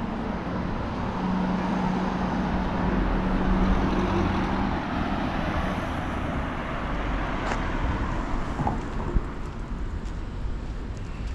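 Road traffic: a car passes, its engine hum and tyre noise swelling to a peak a few seconds in, then fading.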